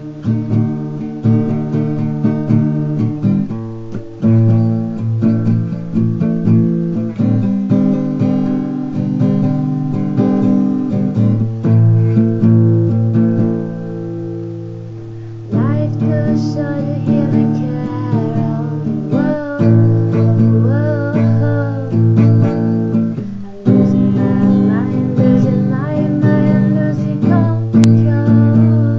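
Acoustic guitar strumming chords in a steady rhythm. About halfway through, a gliding melody line joins above the chords.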